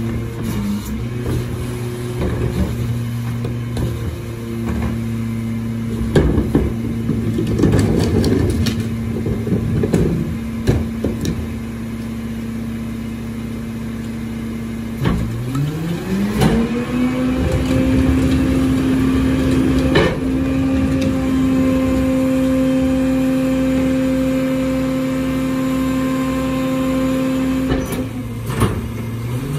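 Mack LR garbage truck engine idling while refuse is tipped into the rear hopper with knocks and clatter. About halfway through, the engine revs up and holds at a raised idle to drive the Leach Alpha III packer's hydraulics through a compaction cycle, then drops back near the end and revs up again.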